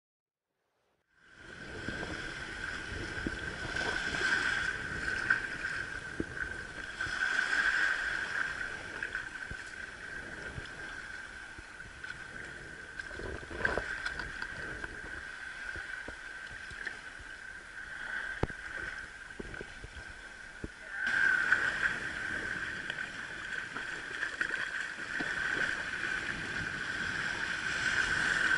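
Shallow sea water sloshing and gurgling around a wading angler's legs, with small knocks and splashes, starting about a second in. A steady high-pitched whine runs under it throughout.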